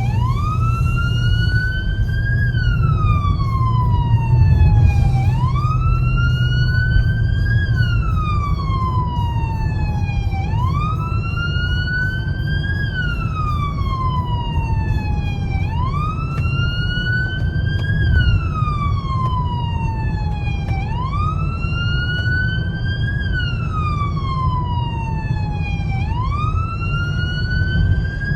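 Emergency siren on a slow wail, rising and falling about once every five seconds, over the steady low rumble of a moving vehicle.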